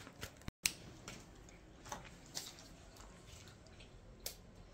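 A few faint, isolated clicks and taps from small items being handled, over quiet room tone, with a brief total dropout about half a second in.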